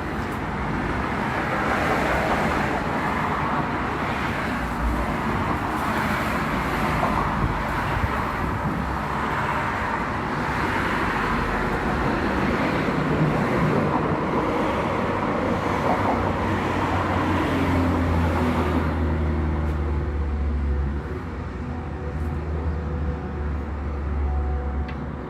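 Road traffic noise: cars going by in waves, with a low, steady hum taking over for the last several seconds.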